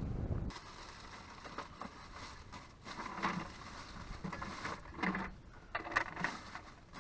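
Wind buffeting the microphone, cutting off about half a second in, followed by a run of irregular scrapes, rustles and small knocks of objects being handled.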